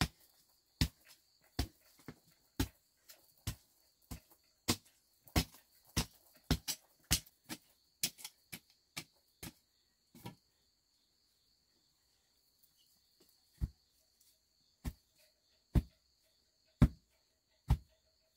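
A series of sharp knocks or strikes, close together at about two a second at first, then a pause of about three seconds, then slower at about one a second. A faint steady high insect drone runs behind them.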